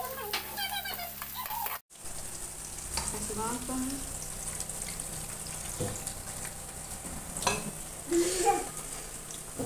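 Chopped onions and green chillies sizzling in oil in a kadhai. About two seconds in it cuts to a hand mixing wet, ground chana dal batter in a steel plate, with a steady frying hiss under it.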